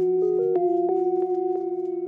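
Background music: a gentle tune of struck, bell-like mallet notes over sustained tones.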